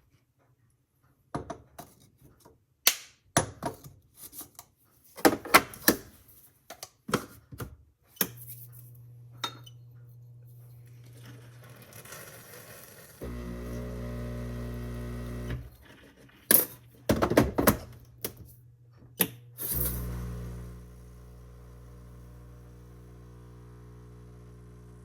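Repeated sharp knocks and clatter, then a low mechanical hum that starts about thirteen seconds in and stops a couple of seconds later. After a few more loud knocks the hum comes back, louder at first and then steady.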